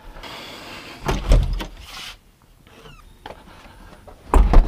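A door being opened and shut: a scraping slide, then loud thumps about a second in and the loudest thump near the end.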